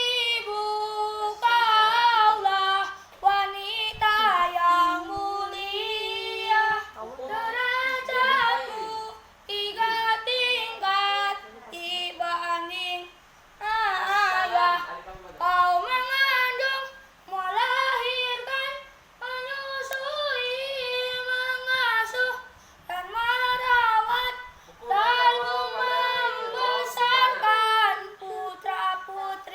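A child's solo voice singing unaccompanied, in long melodic phrases with wavering, ornamented held notes and short pauses for breath between them.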